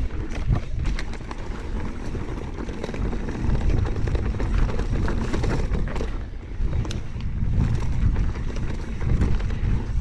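Mountain bike descending a dirt trail at speed: wind buffeting the microphone and tyres rumbling over the dirt, with frequent short rattles and clicks from the bike over bumps.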